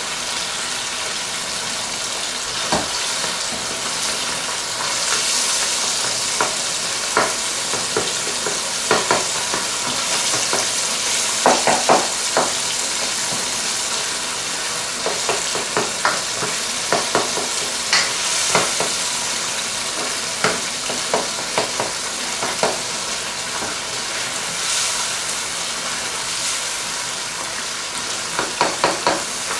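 Chicken and tomatoes sizzling steadily in a nonstick karahi, stirred with a spatula that scrapes and clicks against the pan now and then.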